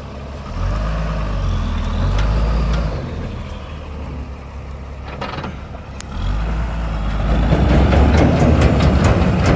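Heavy vehicle's engine running under load. It grows louder about half a second in, eases off for a few seconds, then builds again from about six seconds in and stays loud.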